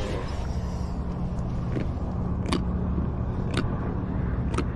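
A steady low hum with four sharp clicks about a second apart.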